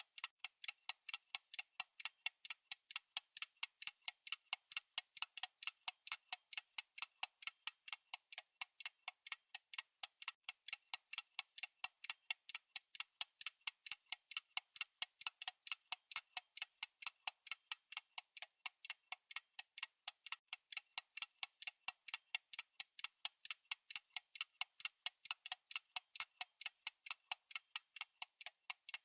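Countdown timer's ticking sound: crisp, clock-like ticks at an even, unchanging pace, several a second.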